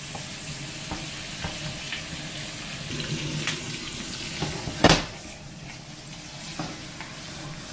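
Pork belly, garlic sprouts and onion sizzling in a frying pan as they are stirred with wooden chopsticks, with light clicks of the chopsticks against the pan and one louder knock about five seconds in.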